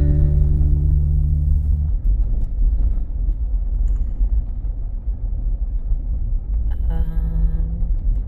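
Low, steady rumble of a Jeep driving on a back road: engine and road noise.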